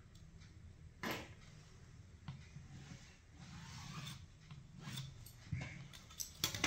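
Faint rubbing of a line being marked on blouse cloth, with a few light knocks as the tools and cloth are handled.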